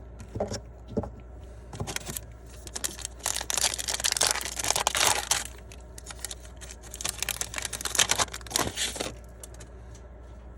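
Wrapper of a sports-card pack being torn open and crinkled in the hands: a few light clicks, then two long stretches of crackling rustle, stopping about nine seconds in.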